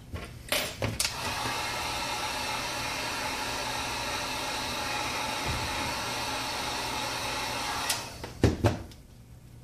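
Wagner heat gun blowing steadily for about seven seconds, switched on with clicks about a second in and off near the end, followed by a couple of knocks. It is heating the phone's front glass to soften the adhesive underneath.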